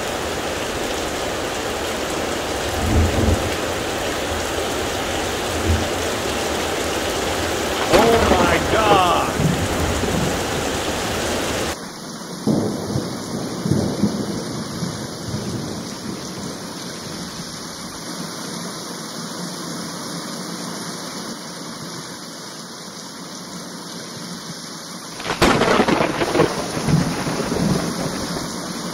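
Heavy rain pouring down in a thunderstorm, with rolling thunder rumbles. About twelve seconds in the rain sound suddenly drops to a lower level. A loud thunderclap breaks out near the end.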